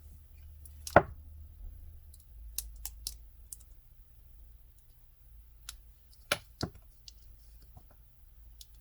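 Scattered sharp clicks and taps of small hard plastic pieces, the false nail tips, being handled, flipped over and set down on a work surface. The loudest tap comes about a second in, with a quick cluster around three seconds and a pair of taps later on, over a faint low steady hum.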